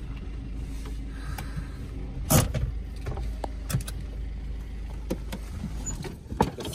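Steady low hum of a car heard from inside the cabin, with a few sharp clicks and knocks, the loudest about two seconds in.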